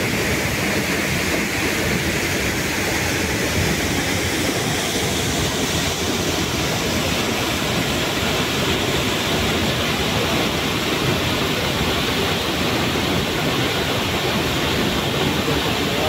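Waterfall pouring into a rock pool: a steady, unbroken rush of falling water.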